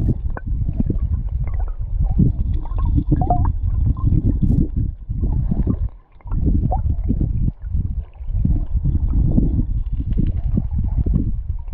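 Muffled, gurgling rush of river current recorded underwater by a submerged camera, mostly low rumble with small crackles, dipping briefly about six seconds in.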